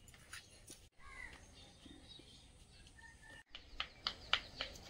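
A crow caws once about a second in, over faint background. Near the end comes a quick run of sharp taps, the loudest sounds here.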